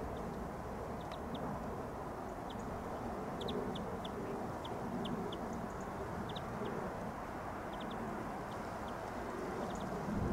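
Distant Boeing Chinook tandem-rotor helicopter in display flight, heard as a steady low rumble of rotor and engine noise. Small birds close by give many short, high chirps over it.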